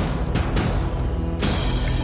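Dramatic theme music with heavy drum hits about three a second over sustained low notes; about one and a half seconds in, a bright rushing sweep comes in sharply.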